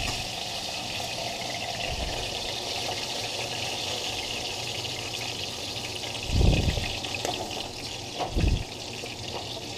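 Breaded fish fillets frying in hot oil: a steady sizzle and crackle. Two low thumps come about six and a half and eight and a half seconds in.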